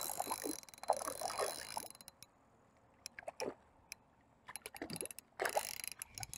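Spinning reel being cranked with a fine gear ticking, in short spells with pauses, while a small hooked rainbow trout splashes at the surface.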